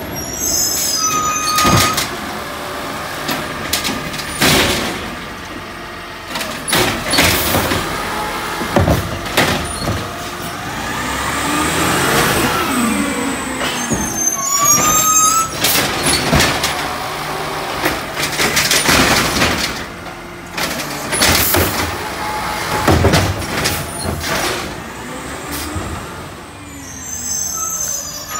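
Automated side-loader garbage truck at work: the engine runs and revs up and down while the hydraulic arm lifts and empties carts, with repeated bangs and knocks and the hiss of air brakes.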